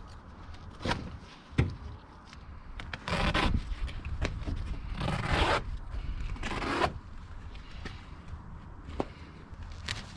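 Hand-handling of a folding utility knife set and its plastic blade containers: two sharp clicks, then three short scraping rubs, each about half a second long.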